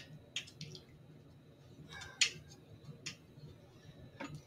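A few faint, irregular clicks and taps of a small screw and fingers against a TV stand's leg bracket as the screw is worked into its hole, the loudest a little after two seconds in.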